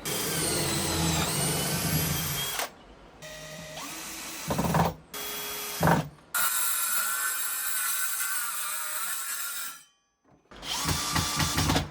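Power tools running in a series of short clips that start and stop abruptly, with a couple of sharp knocks about five and six seconds in, during drawer building in wood.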